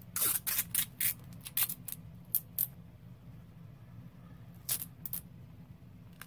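Paper and craft materials being handled at a desk: a quick run of sharp clicks and rustles in the first couple of seconds, then two more clicks near the end, over a low steady hum.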